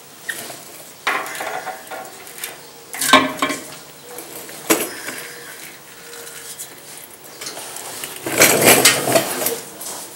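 Steel differential cover being pried loose from a Dodge Ram rear axle housing and handled: scattered metallic clinks and scrapes, with a longer burst of clatter about eight seconds in.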